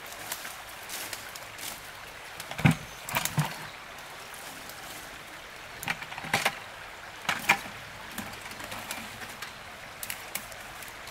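Several short splashes and knocks in water, in two clusters, over a steady sound of running water.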